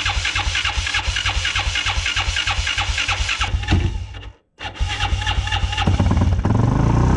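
Yamaha Raptor 660 quad's single-cylinder four-stroke engine running with an even, pulsing beat. It breaks off for a moment about four seconds in, then comes back and revs up near the end.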